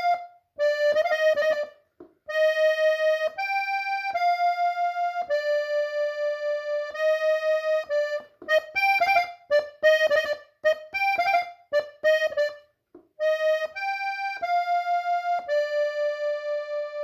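Hohner diatonic button accordion in F playing a slow single-note melody, with held notes broken by quick ornamental runs. The playing breaks off briefly about two seconds in and again near thirteen seconds, and the same phrase returns after each break.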